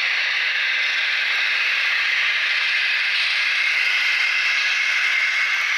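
HO-scale KATO KiHa 82 diesel railcar model running, heard as a steady even hiss with little low end and no distinct engine beat, from its sound-decoder running sound through small on-board speakers mixed with wheel noise.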